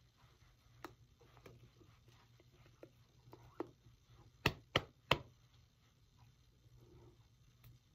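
Hands slapping and tapping while signing: a few soft taps and brushes, then three sharp slaps about a third of a second apart around the middle. A faint low hum runs underneath.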